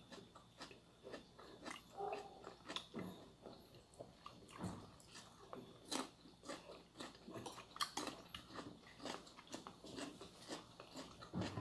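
Biting into and chewing raw cucumber: a run of faint, irregular crunches and small clicks.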